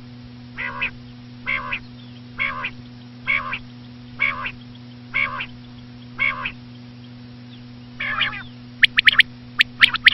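Common quail calling: a slow, regular series of short calls, about one a second, about nine in all. Near the end, quick sharp high notes in short tight groups start.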